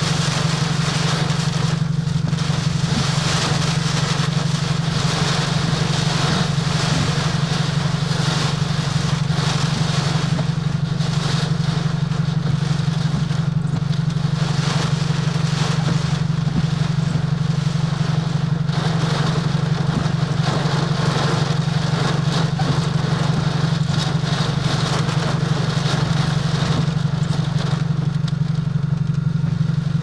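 Heavy wind-driven rain and gusting thunderstorm downdraft winds battering a car, a hiss that swells and eases with the gusts, over a steady low hum.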